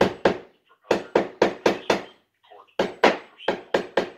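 Loud, sharp knocks in quick runs of five or six, about four a second, with short pauses between the runs.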